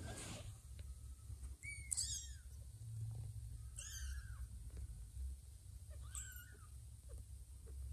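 Two-week-old kittens giving three short, high-pitched mews, about two seconds apart.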